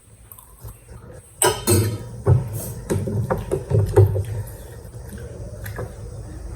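Eating sounds close to the microphone: a sharp knock about a second and a half in, then a string of soft low thumps and small clicks from utensils and plate.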